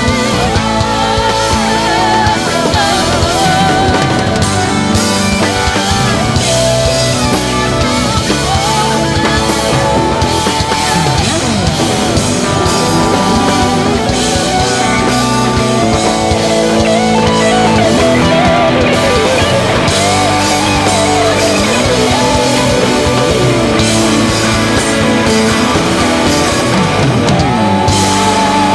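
Worship band playing loud rock-style music with electric guitar, steady throughout.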